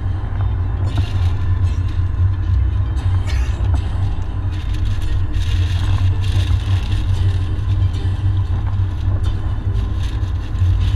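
Car driving on a wet highway in heavy rain, heard from inside the cabin: a steady low road and engine rumble, with a hiss of rain and tyre spray that comes and goes.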